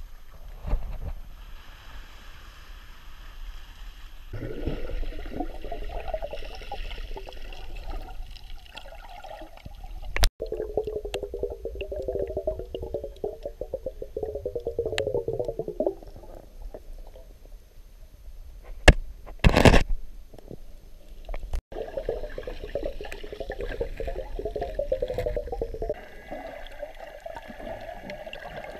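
Water heard through a submerged action camera: muffled bubbling and gurgling that comes and goes, with a few sharp knocks, the loudest about two-thirds of the way in.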